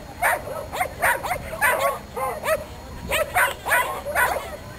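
A dog barking over and over in quick succession, about three barks a second without a break.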